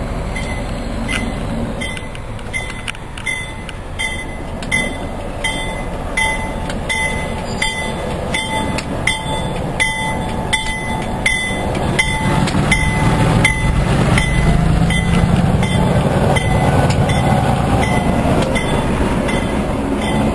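Diesel switcher locomotive rolling slowly past close by, its engine and running gear rumbling louder in the second half. A bell strikes about twice a second through the first twelve seconds, with a faint wheel squeal near the end.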